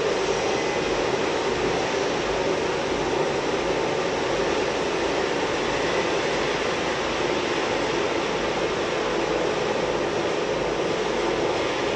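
Hydraulic two-roller rolling machine running steadily, its rolls turning a metal sheet, with an even mechanical hum.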